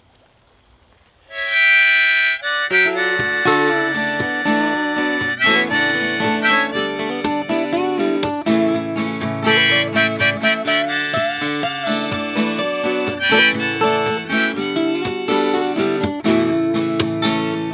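Instrumental intro played on a harmonica held in a neck rack and two acoustic guitars. After about a second and a half of near silence the harmonica comes in with the melody, and the guitars join about a second later.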